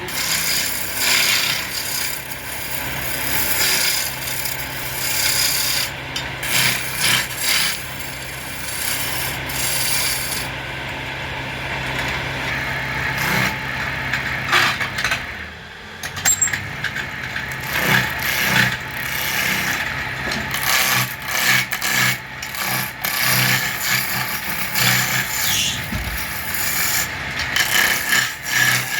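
Wood lathe running with a steady hum while a turning tool cuts and scrapes the spinning wood in uneven, rasping strokes.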